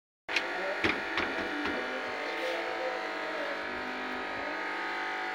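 A steady electrical buzzing hum runs throughout, with a few light knocks and clatters in the first two seconds as the chapati is handled on its rolling pin.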